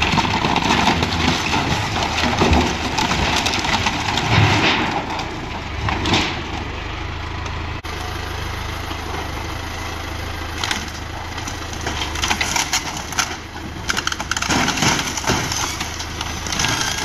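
Farm tractor's diesel engine running steadily while its front loader shoves into a wooden barn, with repeated cracks and crunches of splintering boards and timbers as the structure breaks apart.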